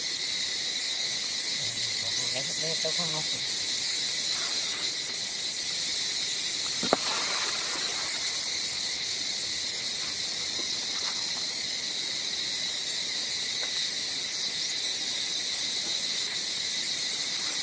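Steady high-pitched insect chorus, a continuous drone, with one sharp click about seven seconds in.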